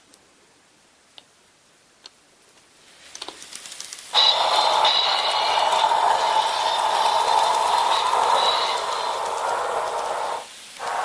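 Recorded train running sound played from a TOMYTEC GeoColle sound unit: it comes in faintly about three seconds in, turns to a loud steady noise about a second later, and dips briefly near the end.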